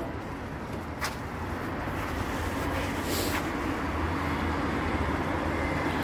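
Road traffic noise from the street below: a steady hum of passing vehicles that slowly grows louder.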